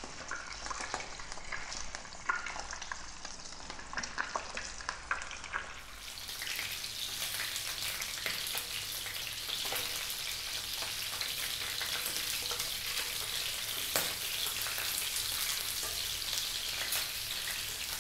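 Skin-on chicken pieces sizzling in hot olive oil in a nonstick frying pan at medium heat as they brown, a steady sizzle that turns brighter and louder about six seconds in. Occasional sharp clicks of the utensils against the pan as the pieces are turned.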